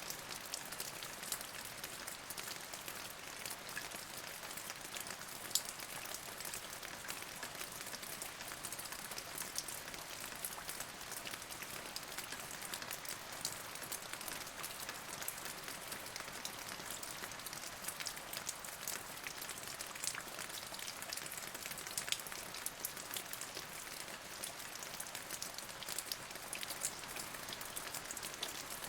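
Steady rain falling, an even hiss dotted with many small, sharp ticks of individual drops hitting a surface.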